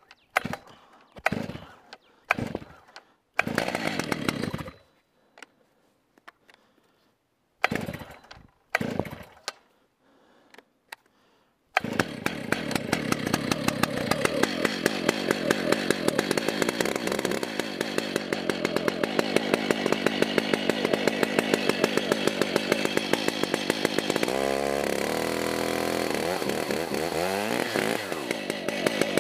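Stihl MS 880 Magnum chainsaw, a 121.6 cc two-stroke, being pull-started. A series of short starter-cord pulls and sputters comes first. About twelve seconds in the engine catches and runs steadily, then is revved up and down a few times near the end.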